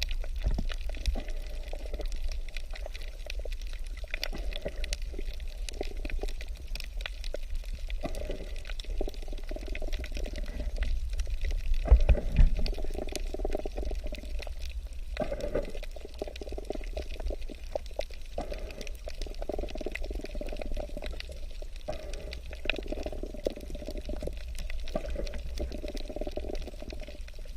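Water bubbling and sloshing heard underwater over a steady low rumble, with many small clicks and a louder surge about twelve seconds in.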